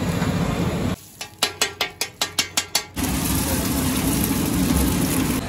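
A wire whisk beating eggs in a plastic bowl: a quick run of about ten clicks, some five a second, starting about a second in. After that comes a steady sizzle of eggs frying in oil on a flat iron griddle.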